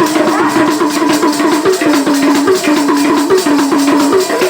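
Instrumental passage of a devotional song: a lead melody in short repeated notes stepping up and down, over fast, steady percussion.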